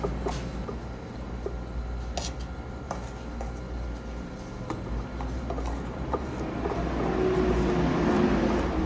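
A metal spatula spreads and smooths whipped cream on a cake, with soft scraping and scattered light clicks, over a steady low hum. A louder hiss swells near the end.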